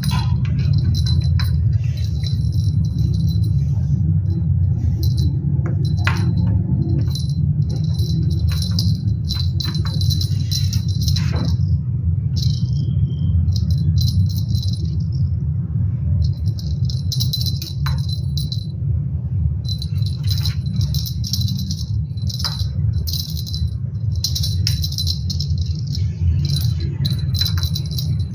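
Background music with jingling, rattling percussion that comes and goes, over a steady low hum.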